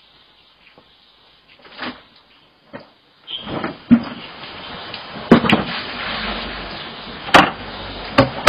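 A few faint knocks, then from about three seconds in water splashing and pouring with several sharp knocks of plastic buckets and basins during an outdoor bucket bath.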